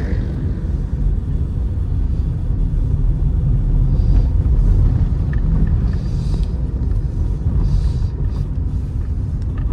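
Kia Picanto driving on a road test: a steady low rumble of engine and road noise, with brief hissing swells about four, six and eight seconds in.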